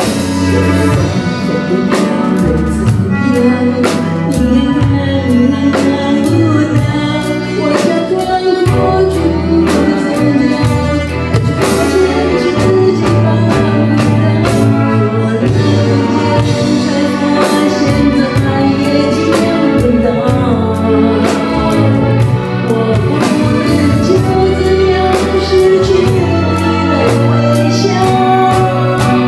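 A woman singing a Chinese-language pop ballad live into a microphone, over musical accompaniment with a steady beat.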